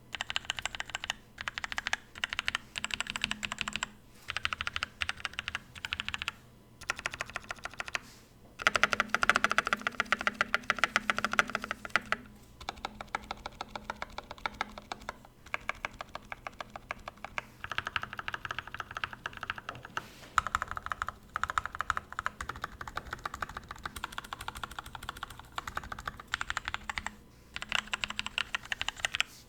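Typing on a modded Sharkoon Skiller SGK1 mechanical keyboard with Kailh Brown tactile switches: fast runs of clicking keystrokes broken by short pauses, loudest about a third of the way in.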